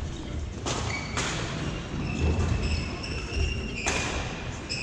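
Sneakers squeaking on a hardwood gym floor, with a few sharp knocks and some dull thumps of footsteps.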